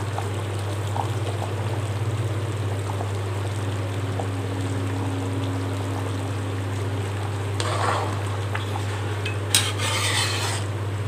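Mutton curry bubbling at a boil in a wide metal pan while a ladle stirs it, with a couple of short scraping bursts near the end. A steady low hum runs underneath.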